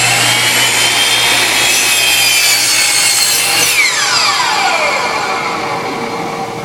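Electric mitre saw running at full speed and cutting an angle through a piece of wood. It is switched off a little under four seconds in, and the blade spins down with a long falling whine.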